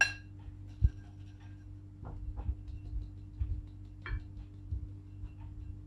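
Flour being sifted through a red plastic sieve over a glass bowl: a ringing glass clink at the start, a thump about a second in, then soft, irregular taps and rustles as the sieve is shaken and knocked. A steady low hum runs underneath.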